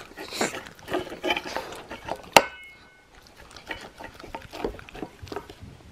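Shiba Inu licking an empty stainless steel bowl clean: a run of wet tongue laps and scrapes against the metal. About two and a half seconds in comes one sharp clink, the loudest sound, and the bowl rings briefly after it.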